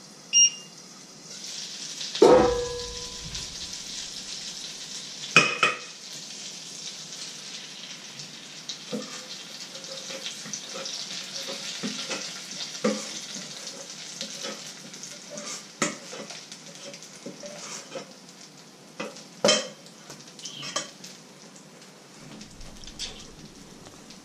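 Thin pancake batter sizzling in a hot frying pan, a steady hiss broken by metal clanks of the pan and ladle, one ringing clank about two seconds in. A short electronic beep sounds just before the sizzling starts.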